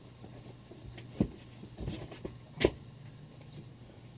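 Comic books and a cardboard box being handled: a few short thumps and handling noises as issues are set down, the loudest about two and a half seconds in, over a steady low hum.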